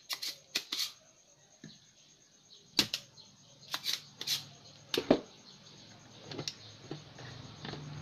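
About eight sharp clicks and knocks at irregular spacing, three close together at the start and more a few seconds in: hand tools, a desoldering pump and soldering iron, being handled on a workbench while a fuse is desoldered from a TV power supply board.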